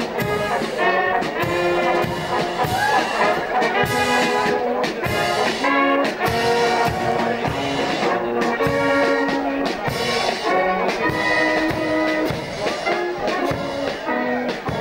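Marching brass band playing a march: trumpets, trombones and tuba over a steady drum beat.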